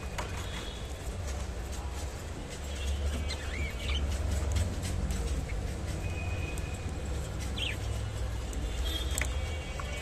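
Albino budgerigars giving a few short, scattered chirps and making small clicks while they eat water spinach leaves, over a steady low background rumble.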